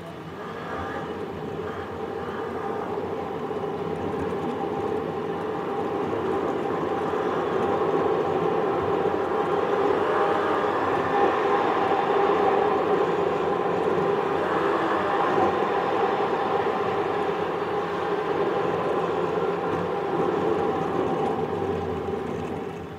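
Road and tyre noise from a car, heard from inside through a dashcam: it builds as the car pulls away, holds steady at speed, then dies away sharply near the end as the car slows to a stop.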